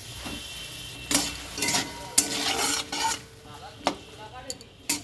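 A spatula stirring and scraping potatoes, green chillies and tomato sizzling in oil in a metal kadai, working freshly added chilli and turmeric powder through them. A steady sizzle runs underneath; from about a second in comes a quick run of scraping strokes against the pan, easing off after about three seconds into a few lighter scrapes and clicks.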